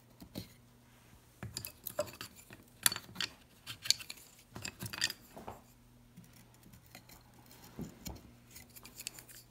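Rubber mallet tapping 5/16-inch wooden dowels into drilled holes in a wooden 1x2 rail: a series of irregular knocks and clicks, the two loudest about three and four seconds in.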